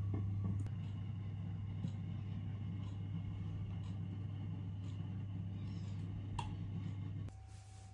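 A steady low mechanical hum with a few faint clicks, which cuts out abruptly near the end, leaving a quieter, thin steady tone.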